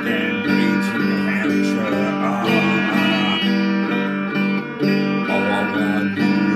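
Electric guitar playing a steady, repeating riff of sustained low notes with higher notes over them.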